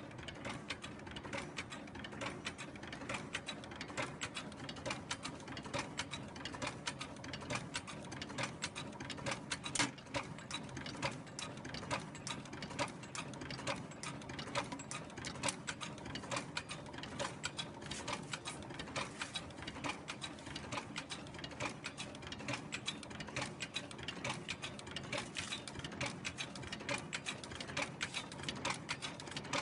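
Rasch RUEA2 Neapolitan wrapping machine running with the outer wrap fed from a stack, its mechanism making a rapid, steady clatter of small clicks and ticks.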